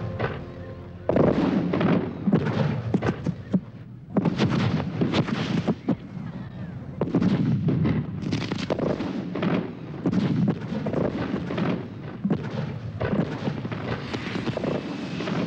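Fireworks display: aerial shells and rockets going off in a dense barrage, loud bangs following one another in quick succession.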